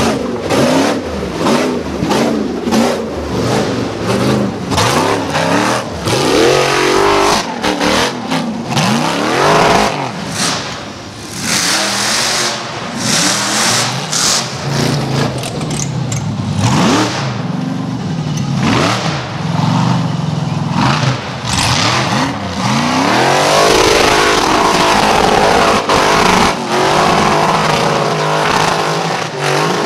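Rock bouncer buggy engines revving hard again and again, the pitch rising and falling, as the buggies claw up a steep rocky dirt hill with tyres spinning and throwing dirt.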